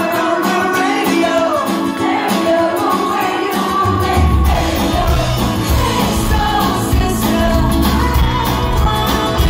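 Live pop-rock band playing, with a male lead singer over strummed ukulele, heard from the crowd. About four seconds in, the bass and drums come in and the sound fills out.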